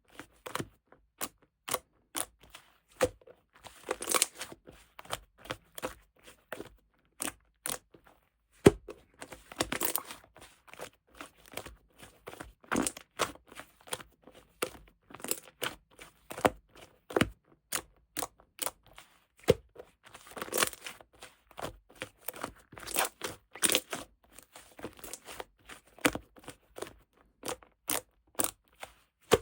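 Slime being squished, pressed and stretched by hand, giving many irregular small clicks and pops, with short stretches of sticky crackling.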